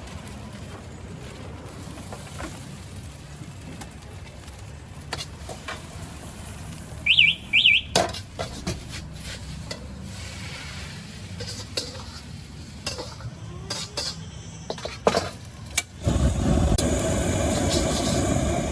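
Cooking on a street-stall wok: a metal spatula clinks and scrapes against the wok over the steady hum of the burner, with two sharp high squeaks about seven seconds in. About sixteen seconds in a loud rushing sizzle starts suddenly and holds.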